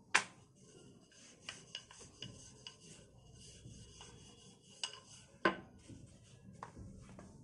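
Wooden rolling pin rolling a flour-dusted round of dough on a bamboo cutting board: a soft, even rubbing broken by a few sharp knocks, the loudest right at the start and about five and a half seconds in.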